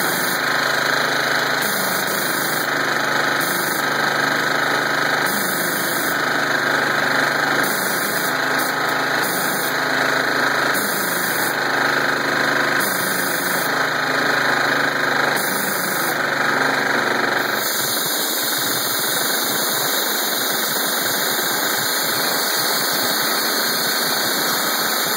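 ETQ diesel-engine air compressor running steadily with a loud, even mechanical noise. About two-thirds of the way through, the low steady hum underneath falls away while the rest of the running noise carries on.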